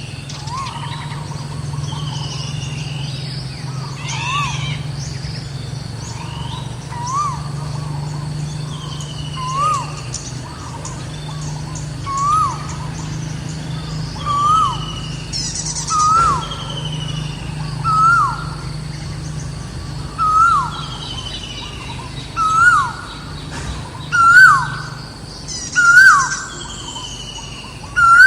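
Wild birds calling: one bird repeats a short rising-and-falling note about every two seconds, getting louder and a little higher in pitch as the series goes on. Another bird gives fainter falling whistles, over a steady low hum.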